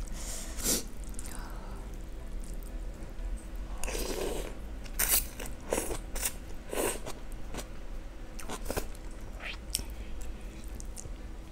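Close-miked eating of instant noodles in soup: a short slurp of noodles about four seconds in, then chewing with wet mouth clicks and smacks about once a second.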